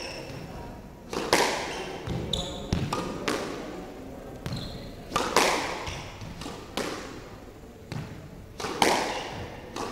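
Squash ball being struck by rackets and hitting the walls and floor of a squash court, sharp echoing smacks about once a second, with short squeaks of shoes on the wooden floor between them.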